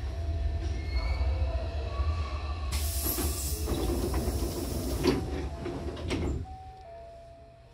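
Sliding doors of a Hankyu 8000-series train closing over the stopped train's steady low hum. A hiss of air comes about three seconds in as the doors start to move, and a knock follows about five seconds in as they meet. The low hum drops away near the end.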